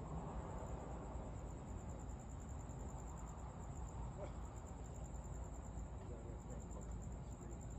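Crickets chirping in a steady, evenly pulsing high trill over a low outdoor rumble.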